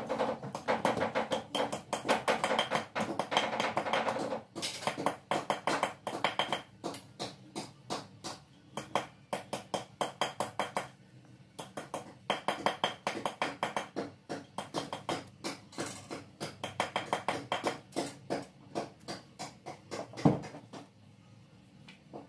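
Quick, repeated scraping strokes as a shoe's fibre sole is shaped by hand, several strokes a second in bursts with short pauses. One louder knock comes near the end.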